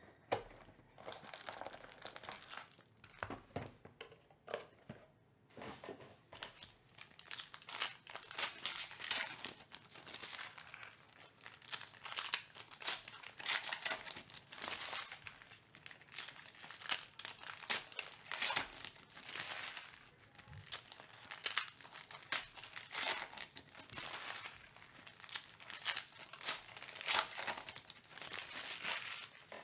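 Foil trading-card packs crinkling and tearing as they are ripped open by hand: an irregular run of crackles and rips, sparser at first and busier after several seconds.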